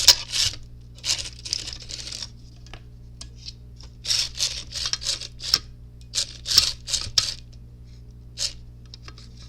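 Hands handling small plastic RC parts and wiring: irregular rustling and scraping with a few sharp plastic clicks.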